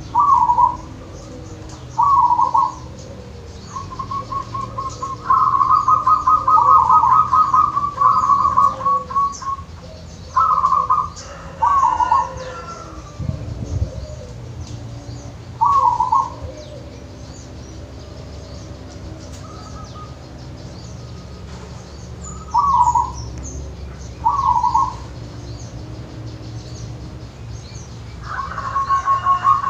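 A local zebra dove (perkutut) cooing: short coos repeated every couple of seconds, with two longer runs of quick staccato notes, one from about four to nine seconds in and one starting near the end. A single dull thump about halfway through.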